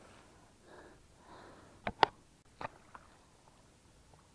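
Faint rustling, then four short sharp clicks and knocks within about a second, the second one the loudest.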